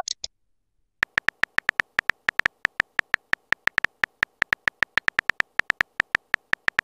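TextingStory app's simulated keyboard typing sound: short, evenly spaced tonal clicks, about six or seven a second, one per letter as a chat message is typed out. A brief high blip sounds just at the start.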